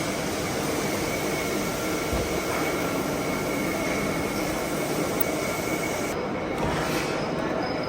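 Metalworking machine running steadily in a machine shop, a continuous rushing noise with a thin high whine over it, typical of metal being cut on a lathe.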